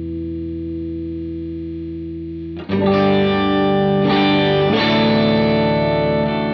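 Electric guitar played through an EHX Nano POG polyphonic octave pedal and a Line 6 HX Stomp. A held chord rings and slowly fades, then a little under halfway through a new chord is struck louder and rings on, with its notes shifting as it sustains.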